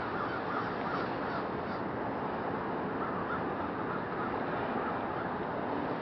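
A large winter roosting flock of American crows cawing, many calls overlapping into a steady chorus.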